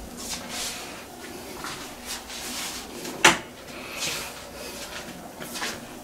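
Handling noise as a bathroom door is opened and a shower curtain pulled aside: soft rustles and knocks, with one sharp click a little over three seconds in.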